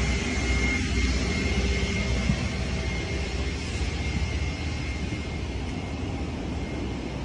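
Steady cabin noise of a Boeing airliner: a low rumble and hiss, with a thin high steady whine that fades after a few seconds.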